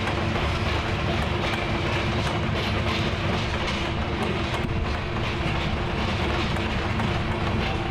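Steam train running along the track: a steady rumble of the locomotive and its cars, with light clicking of wheels on rails.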